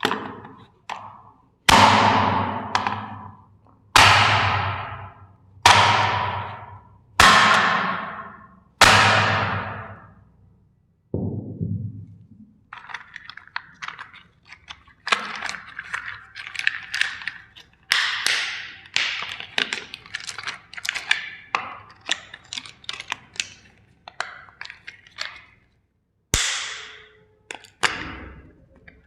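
Plastic toy trains being crushed: six sharp, ringing thunks about a second and a half apart, then a long stretch of cracking and snapping plastic.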